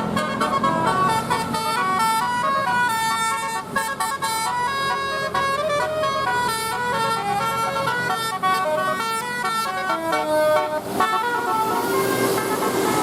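A bus's telolet horn, a multi-tone musical air horn, playing a quick melody of short stepping notes. The melody breaks off about eleven seconds in, leaving a steadier held tone.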